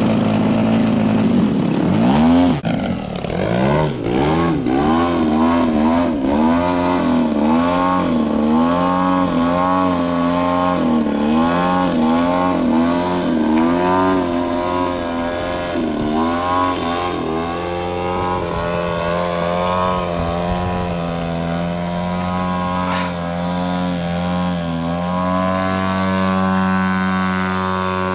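A large RC model airplane's engine running loud, its pitch swelling up and down about once a second as the throttle is worked, then holding a steady pitch and stepping up briefly near the end.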